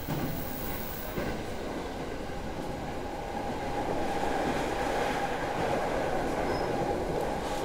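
Running noise of a JR East 209-series electric train under way, heard from inside the passenger car: a steady rumble of wheels on the rails that grows a little louder about halfway through.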